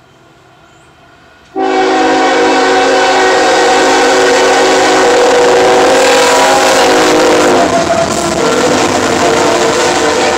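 The horn of the lead Norfolk Southern GE ES40DC freight locomotive sounds one long chord, starting abruptly about one and a half seconds in and cutting off about six seconds later. After it, the locomotives and loaded coal hoppers rumble past.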